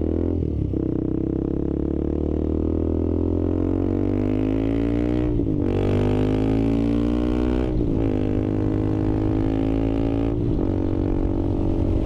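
KTM 390 Adventure's single-cylinder engine accelerating hard through the gears. Its pitch climbs in each gear and drops at four upshifts: about half a second in, and around 5, 8 and 10 seconds. The rider is chasing a rattle here that he puts down to vibration rather than engine speed.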